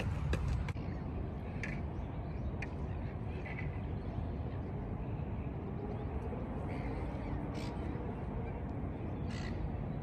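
A crow cawing several times in short calls, spaced a second or more apart, over a steady low rumble of outdoor background noise.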